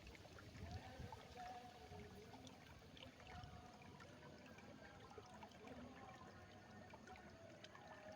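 Faint, steady flow of water trickling through rice paddies.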